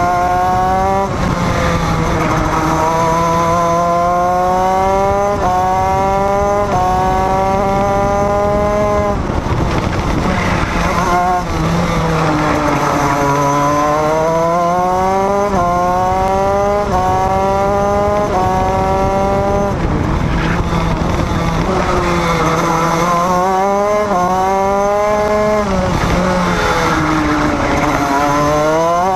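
Onboard sound of a small racing engine accelerating hard through the gears: about every second and a half the pitch climbs, then drops sharply at each upshift. About ten seconds in, the revs fall away as it slows for a corner, then it pulls up through the gears again, and it slows once more near the end.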